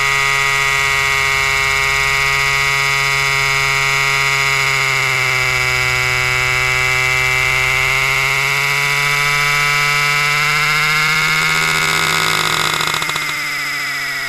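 Two-stroke chainsaw running at high revs while sawing wood. Its pitch sags for a few seconds in the middle and comes back up, and near the end the sound drops off and grows quieter.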